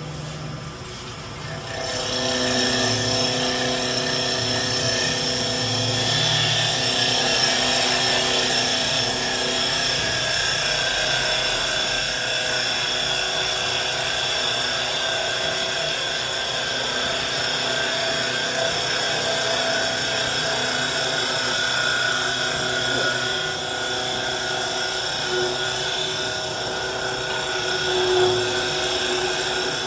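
STL1530 CNC wood turning lathe cutting a wooden spindle: the spindle motor and stepper-driven tool carriage run with a steady mechanical whine of several shifting tones over the hiss of the cutter shaving wood. The sound gets louder about two seconds in, as the cutting starts.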